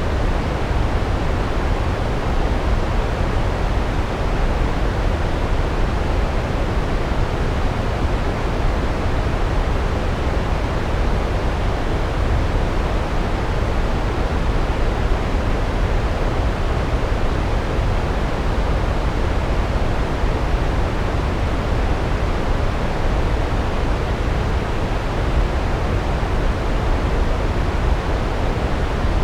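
Large waterfall: a steady, unbroken rush of falling water, deepest and loudest in the low end.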